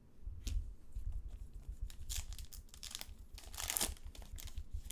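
Crinkling and tearing of a foil trading-card pack wrapper as cards are handled, in a run of short rustles with louder bursts about two seconds in and again near four seconds.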